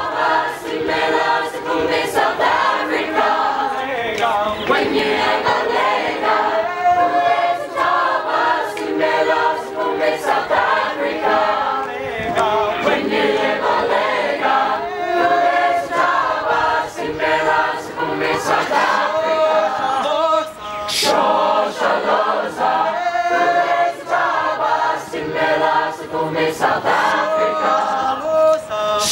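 A school choir of boys and girls singing a cappella, many voices together in a sustained part-song.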